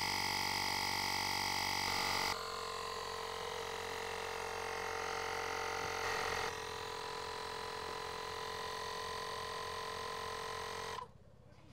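Xiaomi portable electric air pump running steadily with a buzzing hum while it inflates a car tyre toward a preset 33 PSI. The tone changes abruptly twice, and the hum cuts off near the end, where the pump stops by itself at the set pressure.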